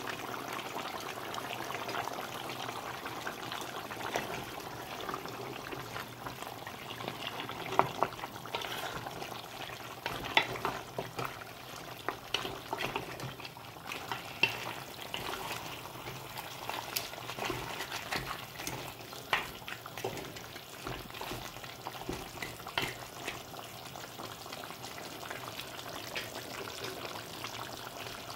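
Deer-meat curry sizzling in a metal pot as a wooden spatula stirs it, with irregular clicks and scrapes of the spatula against the pot. The meat is cooking down in the liquid it has released.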